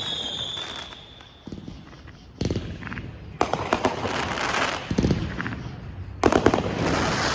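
Aerial fireworks going off: a high whistle fading out at the start, then a string of bangs about two and a half, three and a half, five and six seconds in, with a crackling hiss trailing after the last ones.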